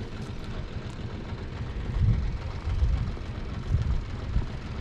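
Wind buffeting the microphone: an uneven low rumble that swells in gusts about two, three and nearly four seconds in.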